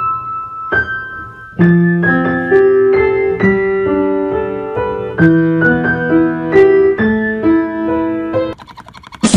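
Piano music: a gentle melody of single struck notes over chords. Near the end the piano stops and a different, noisier sound takes over.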